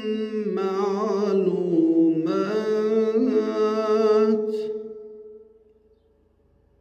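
A man's voice chanting Quran recitation in the melodic tajweed style, one long held and ornamented phrase with a wavering pitch. It trails off about five seconds in, leaving near silence.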